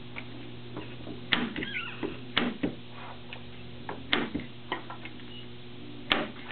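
Staple gun driving staples into a wooden canvas stretcher bar: four sharp clacks a second or two apart, the last the loudest, with fainter clicks between as the canvas is pulled taut with canvas pliers. There is a short high squeak about one and a half seconds in, over a steady low hum.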